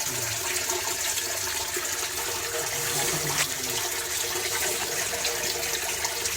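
Steady rush of running water, gushing without a break.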